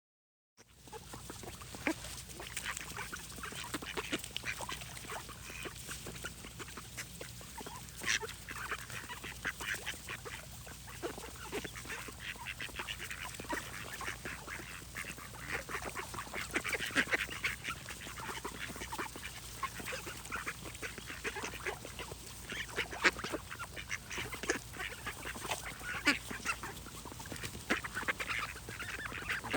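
Ducks quacking: a dense run of short, overlapping quacks that carries on almost without pause, starting about half a second in.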